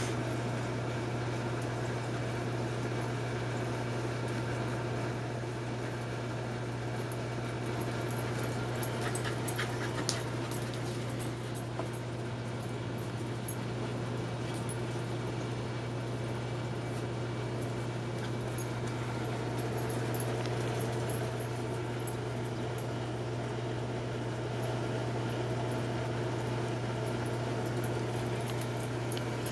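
A steady low mechanical hum with several faint steady tones above it, like a fan or air-conditioning unit, with a few light clicks about ten seconds in.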